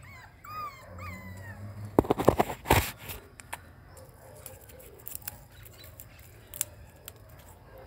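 A few short rising-and-falling animal calls in the first second and a half, then loud rustling and clicking of hands handling a succulent and dry soil around two to three seconds in, followed by faint scattered ticks.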